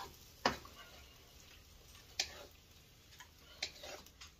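A utensil clicking sharply against a frying pan as strips of steak are laid in, three louder clicks a second or more apart with a few lighter ones. Between the clicks there is only a faint sizzle: the pan on the electric stove has lost its heat and is not hot.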